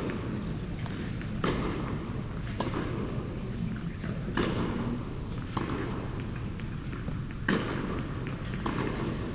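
Tennis ball struck back and forth in a rally: six sharp pops about one to two seconds apart, echoing in a large indoor tennis hall over a steady low hum.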